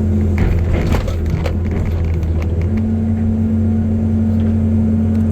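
CAT 320C excavator's diesel engine running steadily, with wood cracking and splintering in the first second or so as the machine works the felled tree. A steady higher hum joins about halfway through.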